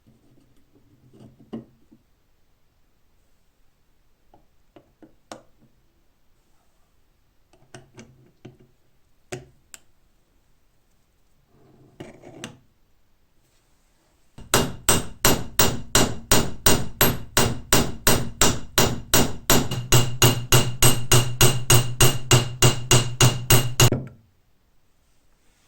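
A hammer tapping on metal in a fast, steady series of about four strikes a second, each with a bright ring. This is typical of peening new rivets while reassembling a riveted steel padlock. Before the hammering there are a few light knocks and clinks of lock parts being handled.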